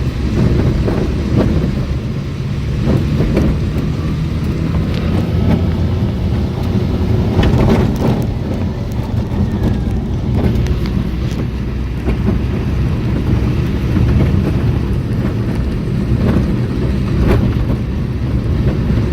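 Car driving along a country road, heard from inside: a steady low rumble of engine and tyres, with a few short knocks from bumps in the road.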